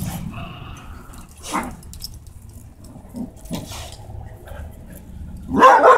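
Small dogs scuffling on concrete, their collar tags and leash jingling, with one loud bark near the end.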